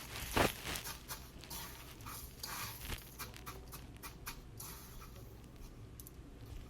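Chicken tenders being pressed and turned in dry panko breadcrumbs: soft, crumbly scratching and rustling in short strokes that thin out after about four and a half seconds.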